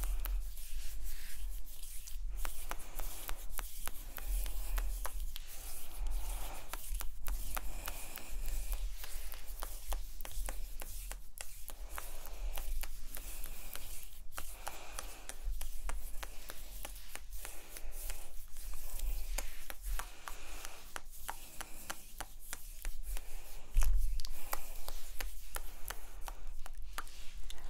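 ASMR hand sounds close to the microphones: palms and fingers rubbing and flicking in quick strokes, with many sharp clicks mixed in. There is a louder bump about 24 seconds in.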